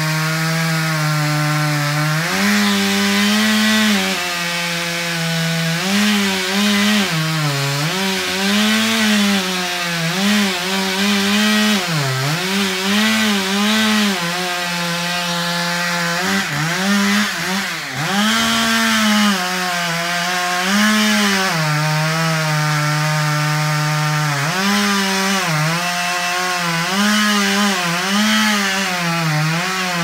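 Two-stroke chainsaw running at high speed and cutting into the base of an oak trunk. Its engine note dips and recovers again and again as the chain loads in the cut.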